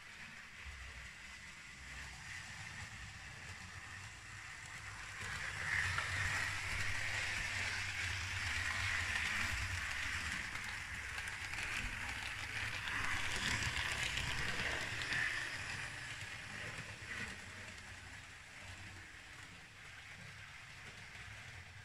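Model diesel multiple unit running on the track: motor hum and wheels rolling on the rails, growing louder about five seconds in as the train passes close by, then fading away.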